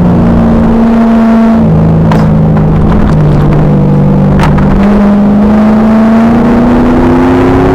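2000 Pontiac Trans Am Firehawk's LS1 V8 on track, loud and distorted from inside the car. The engine pitch drops as it comes off the throttle and holds low, with two sharp clicks in the middle, then climbs steadily as it accelerates again.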